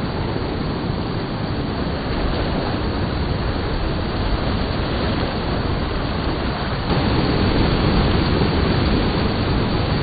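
Surf washing up a sandy beach: a steady rush of noise that turns louder and deeper about seven seconds in.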